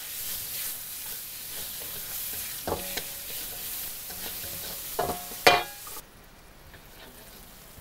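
Chopped onion, peppers and spring onion sizzling as they are sautéed in butter in a metal wok, at the stage of cooking until fragrant. A spatula stirs them, knocking against the wok four times in the middle so that the pan rings briefly. The sizzle cuts off abruptly about six seconds in.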